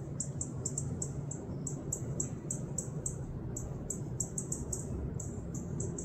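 Rapid, high-pitched chirping, about four to five short chips a second in runs with brief pauses, over a steady low background rumble.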